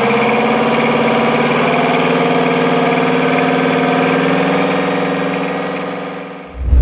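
Detroit Diesel 8V71 Ti two-stroke V8 marine diesel running steadily. Its sound fades away near the end and closes with a brief low thump.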